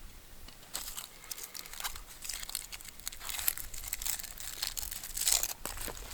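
An onion being cut with a heavy Ka-Bar BK2 fixed-blade knife: an irregular run of crisp crunching and crinkling from the onion's layers and papery skin, loudest around three and a half and five seconds in.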